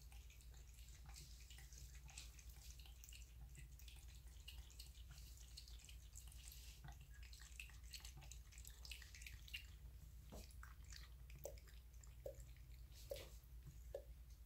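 Faint wet licking and dripping: a cat lapping water from a trickling bathroom tap. In the second half, separate drips fall into the sink basin a little more than once a second.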